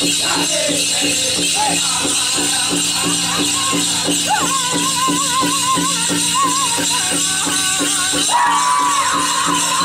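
Powwow drum group playing a chicken dance song: a big drum struck in a fast, steady beat, with singers' wavering high voices coming in about four seconds in and growing fuller near the end. Bells on the dancers' regalia jingle along with the beat.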